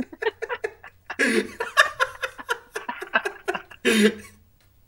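Two men laughing hard in rapid, breathy bursts and snickers, with a brief lull about a second in and a last loud burst near four seconds.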